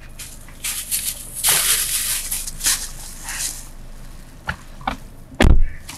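Rustling and shuffling of clothes and a backpack against the seat as a passenger climbs into a car's back seat, then one heavy thud about five and a half seconds in, fitting a car door being shut.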